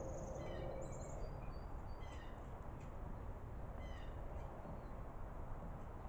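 Starlings giving short, squeaky chirps and whistles in little clusters about half a second, two seconds and four seconds in, over a steady low hum.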